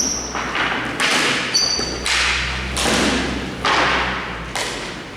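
A run of hard thuds, about one a second, each trailing off into an echo. A short high metallic ping comes at the very start and another about a second and a half in.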